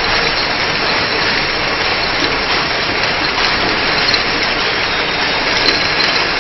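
Round-bottle two-side labeling machine running, its conveyor carrying bottles past the labeling head: a steady, even mechanical noise without a clear rhythm.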